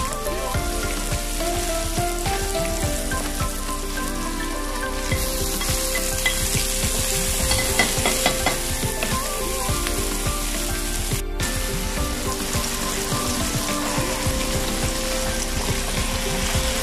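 Chopped onion and garlic sizzling in hot oil in a wok, stirred with a wooden spatula. About five seconds in, the sizzle grows louder as diced tomatoes are added, with a run of spatula knocks against the pan soon after.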